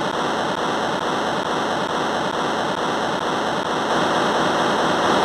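A loud, steady hiss of static-like noise that cuts in and out abruptly, a sound effect laid over the animation.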